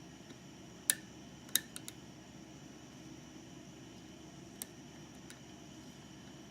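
Small sharp clicks of a lock pick working the pins of a GeGe eAP2000 five-pin tumbler lock: one click about a second in, a quick cluster of three or four just after, and a single click past the middle, over a faint steady hiss.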